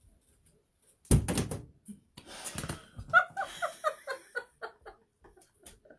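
Laughter: a loud burst of laughing about a second in, then a run of quick, high-pitched 'ha-ha' pulses, about four a second, trailing off.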